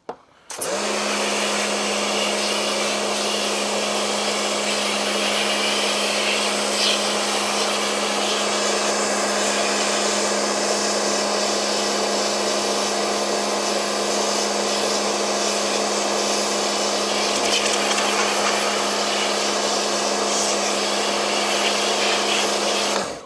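Electric pressure washer running steadily, blasting water through a tumble dryer's condenser box to flush out lint. It starts about half a second in and cuts off just before the end.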